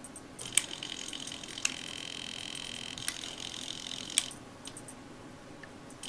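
Model railway point servo running slowly for about four seconds: a faint, steady high gear whine with a few light clicks, then it stops.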